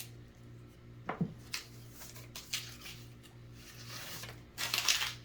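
Pennies being handled and sorted, with a few light clicks of coin on coin and a short rustling scrape near the end, over a low steady hum.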